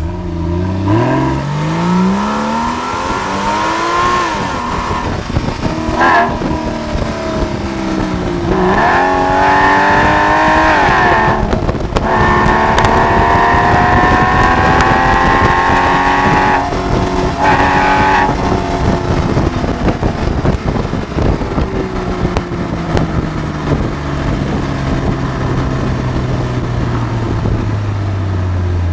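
Porsche 911 (997) Carrera flat-six through its Porsche Sport Exhaust, accelerating through several gears with the revs climbing and dropping back at each shift. It then holds a steady cruise, and the revs fall away near the end.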